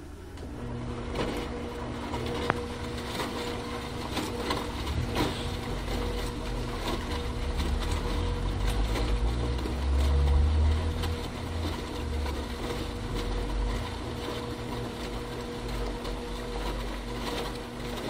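Bosch washing machine running: a steady motor hum with repeated knocks and rattles, and a low rumble that swells about ten seconds in.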